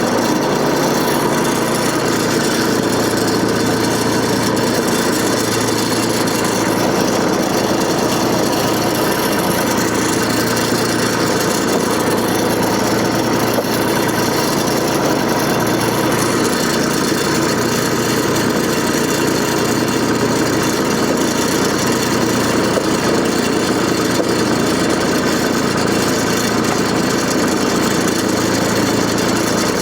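Engine of a John Deere 485A backhoe running steadily at a constant speed, with small shifts in its low hum.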